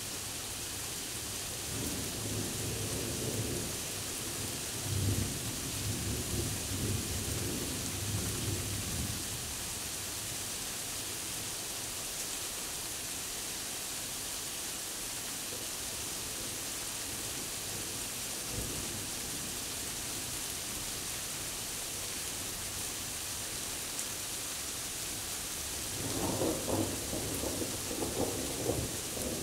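Thunderstorm: steady rain hiss, with a rumbling roll of thunder from about two to nine seconds in and another starting near the end.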